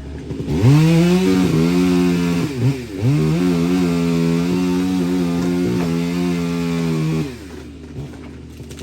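Stihl two-stroke chainsaw revving up to full throttle about half a second in. It dips briefly near the three-second mark, revs back up and is held at a steady high pitch, then is let off near the end.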